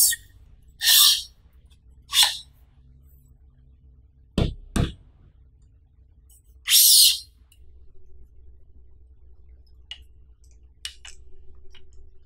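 Handling sounds of a tripod's centre column: several short scraping swishes as the tube slides through its collar, two sharp knocks about half a second apart near the middle, and a few small clicks near the end.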